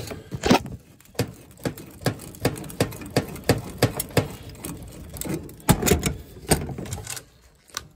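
A wrench on a corroded threaded steel pipe nipple, clicking about two to three times a second as it is swung back and forth to work the nipple loose.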